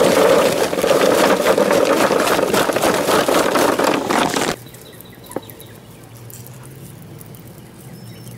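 Charcoal briquettes poured from a bag into a metal grill: a dense, loud clatter of many small knocks that cuts off suddenly about four and a half seconds in. After that, only faint sounds while lighter fluid is squirted onto the coals, with one sharp click about a second later.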